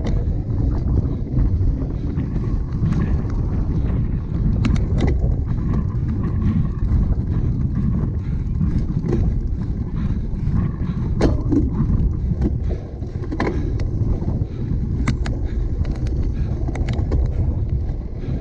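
A cyclocross bike ridden over rough ground: wind rushing over the microphone as a steady low rumble, with frequent sharp clicks and rattles from the bike.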